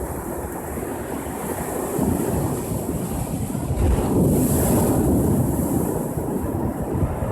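Ocean waves breaking and washing up the shore, with wind buffeting the microphone. The surge builds about two seconds in and is loudest a little past the middle.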